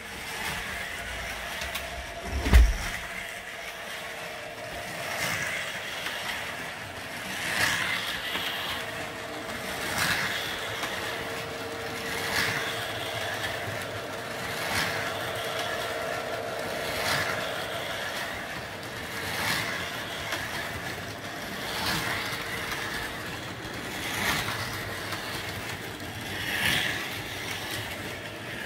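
Model train and 1:43 Carrera Go slot car running on the layout: a steady electric hum with a swelling rush about every two and a half seconds. A single loud thump comes about two and a half seconds in.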